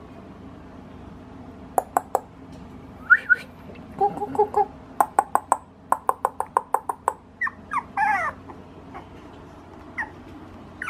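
Puppy giving short, high whimpers and whines now and then, with a quick run of sharp clicks in the middle.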